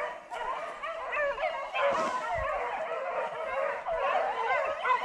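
A pack of beagles baying without a break, many yelping cries overlapping: hounds holding a wild boar at bay.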